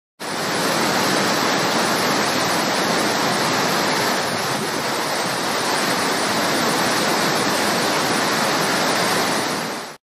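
Waterfall: a steady, even rush of falling water, starting suddenly and fading out near the end.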